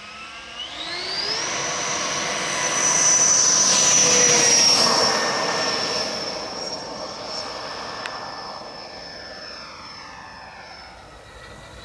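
Schuebeler DS-94 DIA-HST electric ducted fan in a large Cougar model jet spooling up with a rising whine over the first second or so. It then holds a steady high-pitched whine at full power through the takeoff run. The sound is loudest about four seconds in and fades as the jet climbs away.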